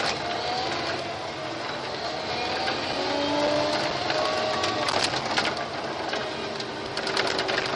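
Cab noise of a Komatsu WA800 wheel loader at work: its diesel engine running steadily under a clattering rattle, with a few sharp clicks about five seconds in and near the end, and faint gliding tones over the top.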